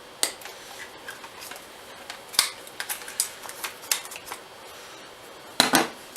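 Handling noise of electrical wire being pulled and routed through a motorcycle's frame: a scattering of short clicks and rustles, with a louder, longer rustle near the end.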